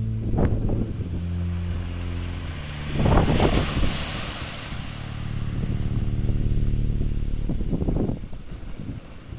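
Small waves breaking on a sand-and-pebble shore, rising in three surges: about half a second in, around three seconds in, and near eight seconds in. Wind rumbles on the microphone, and a low steady hum runs underneath.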